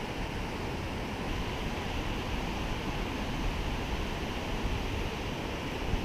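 Steady rushing of river water pouring over a low dam's spillway, an even, unbroken wash of sound.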